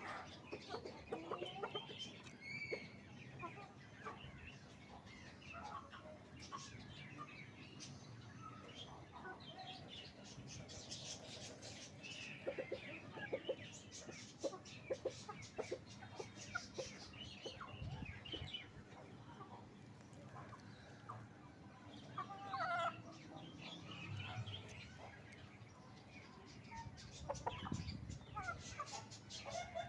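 Aseel hen clucking now and then, with short scratchy clicks and rustles of dry compost, twigs and straw.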